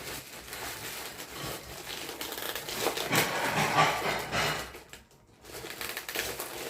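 Packaging being handled and crinkled while a figure is unboxed, a steady rustle that grows loudest in the middle and briefly drops off a little after five seconds.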